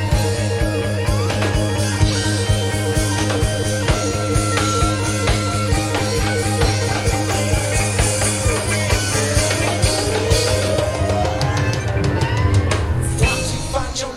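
Live rock band playing an instrumental jam: a drum kit keeping a steady beat under bass and guitar. A long rising glide in pitch builds over the last few seconds.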